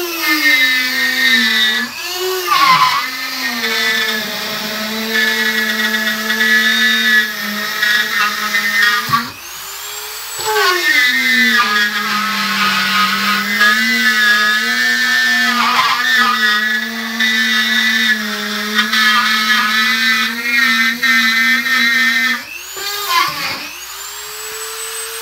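Dremel rotary tool cutting through soft drywall around a water supply valve: a steady high motor whine that drops in pitch as the bit bites into the wall. About nine seconds in it dips and spins back up, then settles low again under load. Near the end it rises to a higher free-running whine.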